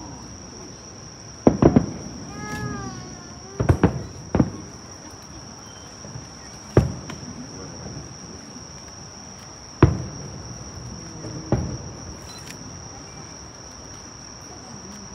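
Distant aerial firework shells bursting: about eight sharp booms, some in quick pairs, each with an echoing tail. A steady high drone of insects runs underneath.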